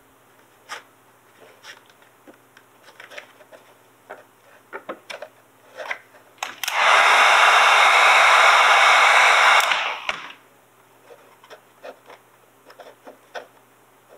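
Handheld heat gun blowing, a steady rush of air for about three seconds near the middle, switched on and off abruptly, warming the vinyl wrap graphic so it conforms to the body. Before and after it come light scattered clicks and rustles of hands working the vinyl on the plastic RC truck body.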